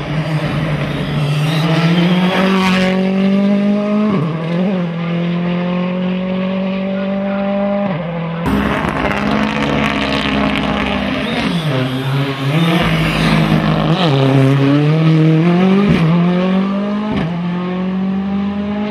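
Rally car engine revved hard, its pitch climbing and then dropping sharply again and again as the driver shifts and lifts through the turns. The sound changes abruptly about halfway through.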